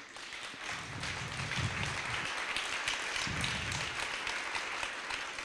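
Audience applauding in a large hall, a dense patter of many hands that builds over the first second or two and fades out near the end.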